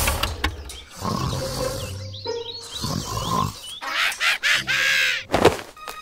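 Added cartoon sound effects: a low engine-like rumble comes in two short stretches, mixed with growling, grunting voice sounds.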